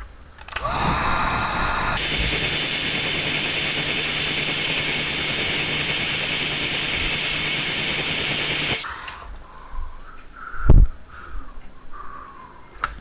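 Heat gun blowing hot air onto the phone to soften the screen adhesive: a steady rush of air with a whine, stepping up about two seconds in and cutting off after about eight seconds. A single thump follows near the end.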